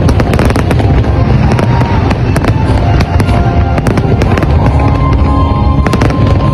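Fireworks display going off in a dense, continuous barrage of bangs and crackles over a heavy low rumble, with music playing alongside.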